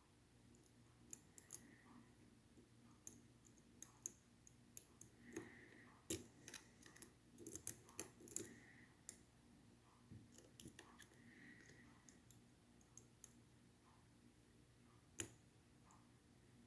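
Faint, irregular clicks and small metallic ticks of a lock pick being wiggled in and out inside a Schlage Primus Everest cylinder, feeling for the sidebar's finger pins. The clicks come thickest about six to eight seconds in, with one sharper click near the end.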